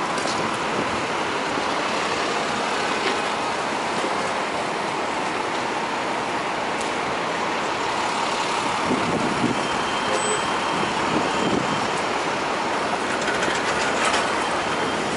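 Steady city street traffic noise: a continuous wash of passing vehicles, with no single event standing out.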